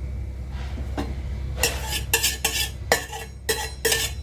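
Metal kitchen utensils clinking and knocking against a cooking pot, with a run of sharp strikes that each ring briefly, most of them in the second half. A steady low hum runs underneath.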